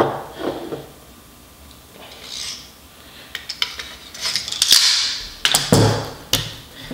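AR-15 upper and lower receivers being fitted together by hand: scattered metallic clicks and scrapes as the parts slide and seat, with a heavier knock near the end. It is a tight fit.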